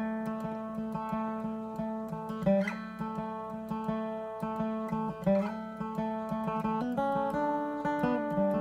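Mahogany acoustic guitar played with a flat pick: chords struck and let ring, changing about every two and a half seconds, with quicker single-note picking in the last second or so.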